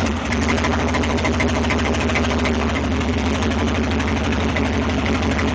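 Truck engine idling with a steady, fast low pulse.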